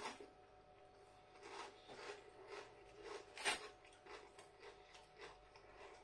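Potato crisps being chewed: faint, crackly crunches at a steady pace of about two a second, one louder crunch about halfway.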